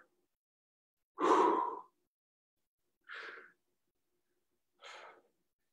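A heavy breath out through the mouth, a sigh-like exhale of effort during a dumbbell deadlift, about a second in. Two much fainter breaths follow later.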